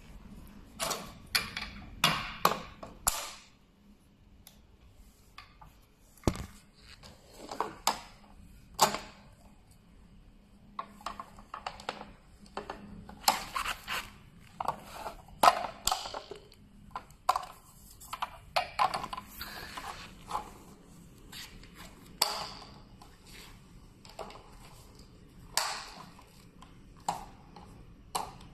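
The metal-tube frame and plastic seat base of a folding rocking chair being handled and fitted together, giving irregular clicks, knocks and clatter, with a couple of quieter pauses.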